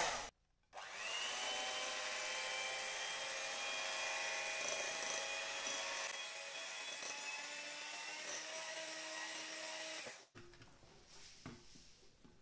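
Electric hand mixer running, its beaters whipping thick cream cheese batter in a glass bowl. The high motor whine spins up just after the start, holds steady, and stops about ten seconds in; a few faint clicks follow.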